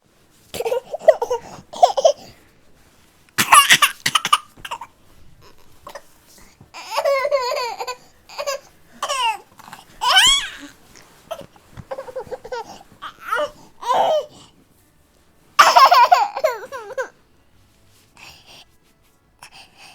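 A baby vocalizing: a run of short, whiny cries and squeals that waver up and down in pitch, with brief pauses between them.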